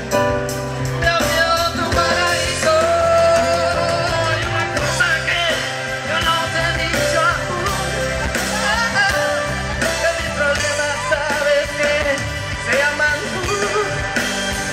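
A live band with drum kit and keyboards playing a pop-rock ballad through a PA system, with a male voice singing over it.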